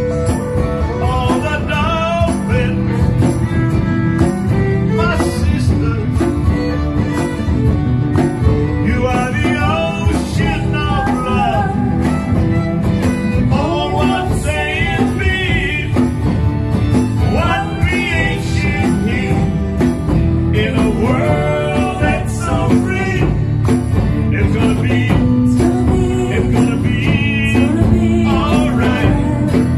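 A song: a singer's voice with marked vibrato carrying the melody over steady instrumental accompaniment with a regular beat.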